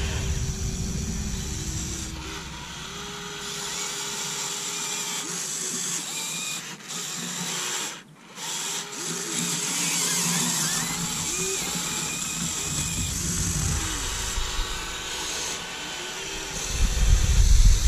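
Small electric motors of a Huina 1580 RC excavator whining as the boom, arm and bucket move, the pitch gliding up and down with each movement and load. The motors stop briefly about eight seconds in, and a low rumble comes in near the end.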